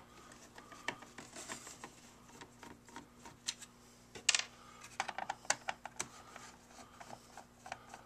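Screwdriver work on the plastic blower housing of a ceramic space heater, backing out the small screws that hold the blower: scattered light clicks, ticks and scrapes, busiest from about four to six seconds in.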